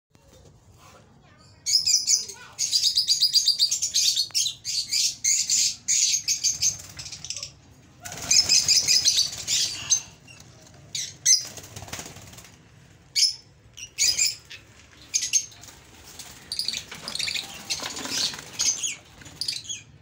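Lovebird chicks in the nest box calling with rapid, high-pitched pulsed chirps, in bursts of a few seconds at a time.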